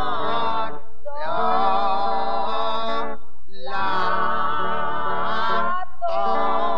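A solo voice sings a slow, chant-like melody with a marked vibrato over held accompaniment notes. The phrases break for short pauses about a second in, again past three seconds, and once more near the end.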